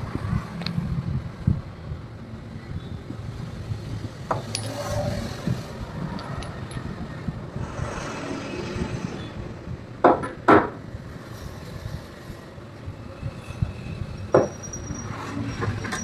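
Steady low rumble of road traffic, broken by a few short sharp knocks: one about four seconds in, two in quick succession about ten seconds in, and one more about fourteen seconds in.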